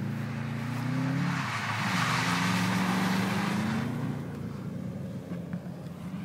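A car's engine revving hard as the car slides sideways across snow and passes close by. A rush of tyre and snow-spray noise swells in the middle, then the engine note falls away as the car moves off.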